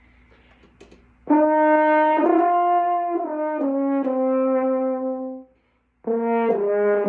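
Brass instrument warm-up: after a second of near quiet with a few small clicks, a run of held notes steps mostly downward, breaks off about five and a half seconds in, and a new held note starts about half a second later.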